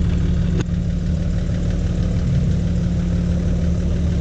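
Toyota 80 series LandCruiser engine idling steadily, with a single sharp click about half a second in.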